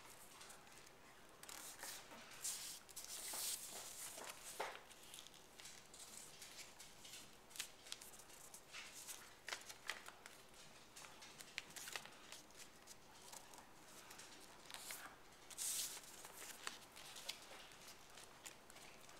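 Origami paper being folded by hand on a wooden tabletop: faint rustling and crinkling with small sharp crackles as creases are pressed, louder around three seconds in and again about fifteen seconds in.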